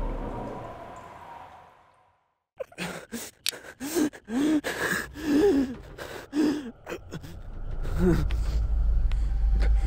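A person gasping in a string of short breaths that rise and fall in pitch, with sharp clicks between them, after the sound has faded to silence. A low rumble swells up near the end.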